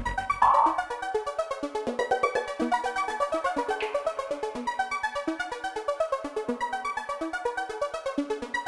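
Electronic background music with synthesizer notes over a fast, even ticking beat. The heavy bass drum drops out as it begins.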